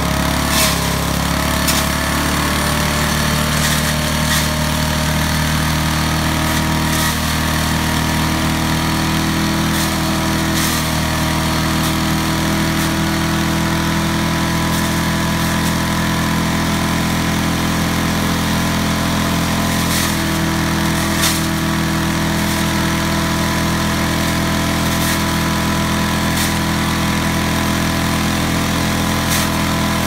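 Small wood chipper-shredder's engine running at a steady speed, with scattered sharp cracks and ticks as dry grass stalks and twigs are fed into the hopper and shredded.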